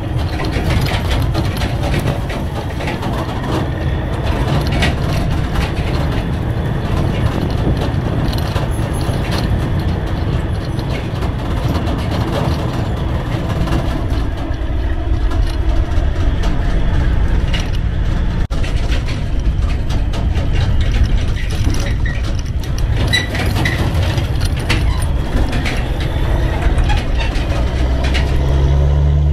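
Semi truck running down the road: a steady low drone of engine and road noise, with frequent clicks and rattles throughout.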